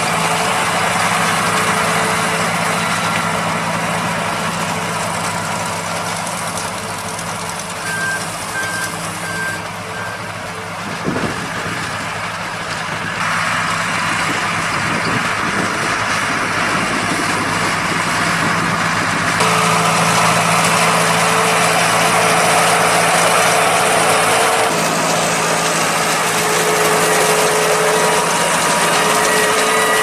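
Deutz-Fahr farm tractors' diesel engines running under load, with the sound changing abruptly a few times. A few short high beeps come about eight seconds in.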